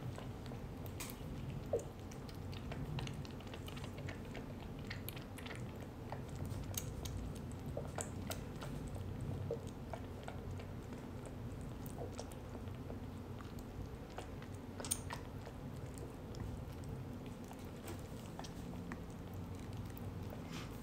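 Newborn kitten suckling milk from a feeding bottle: soft, irregular wet clicks and smacks of its mouth working the nipple, with a sharper click about two seconds in and another near fifteen seconds.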